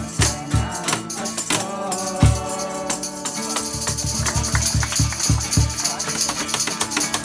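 Group of voices singing a Christmas carol to strummed acoustic guitar, cajón beats and shaken tambourines. The singing stops about two and a half seconds in, and the cajón plays a rapid run of beats under the tambourine jingle as the song closes.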